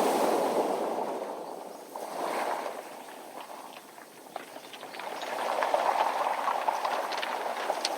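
Waves washing up and draining back over a beach of smooth round pebbles, the water rushing and the stones clattering against each other. The surge fades after the first second, is quietest around the middle, and a new wave builds from about five seconds in.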